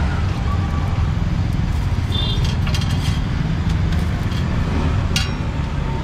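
Street traffic: a steady low rumble of passing motor vehicles, with a short high double beep about two seconds in and a sharp click about five seconds in.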